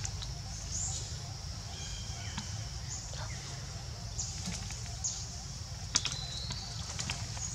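Scattered short, high bird chirps and whistles over a steady low rumble, with a sharp click about six seconds in.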